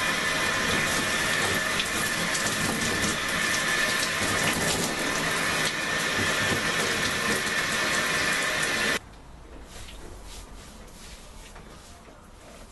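Shower water running steadily behind a shower curtain, shut off abruptly about nine seconds in, after which only faint scattered sounds remain.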